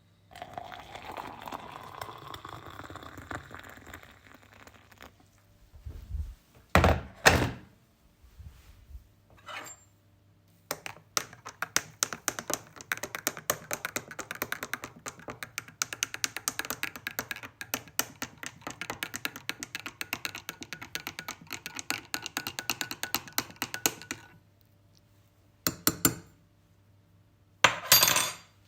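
Coffee poured into a cup, with a faint rising pitch as it fills. A couple of thuds follow as things are set down. Then a spoon stirs fast, clinking against the cup for about thirteen seconds, and there are two sharp taps near the end.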